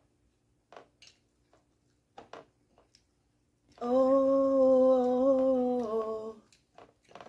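A woman's voice holding one long sung note for about two and a half seconds, steady in pitch and dipping slightly near the end. Before it come a few faint clicks and smacks of eating.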